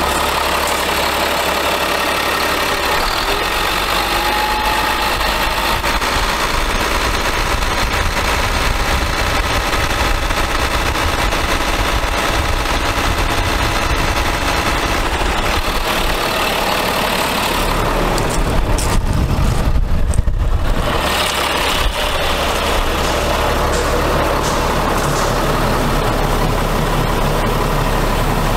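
Caterpillar C7 inline-six diesel engine of a 2007 Ford F750 idling steadily. About two-thirds of the way through, a low rumble briefly muffles it.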